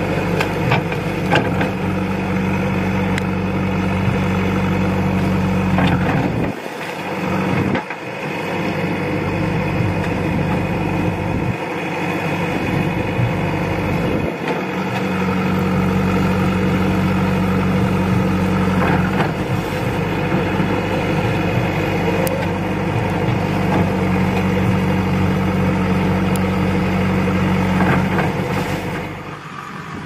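JCB 3DX backhoe loader's diesel engine running, louder in long stretches as the backhoe arm works, with two brief drops about seven and thirteen seconds in.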